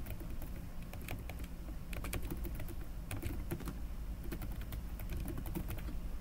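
Typing on a computer keyboard: quick keystrokes in short irregular runs, over a low steady hum.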